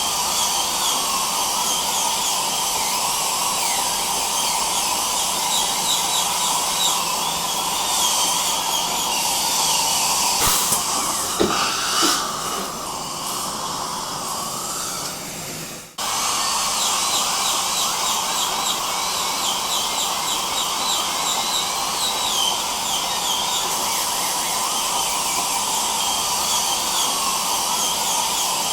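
A dentist's high-speed drill whines steadily over the constant hiss of dental suction, its pitch wavering as it works. From about a third of the way in, the whine drops out for a few seconds of rougher hiss with a couple of clicks. Then the sound cuts off abruptly and the drill and suction start again.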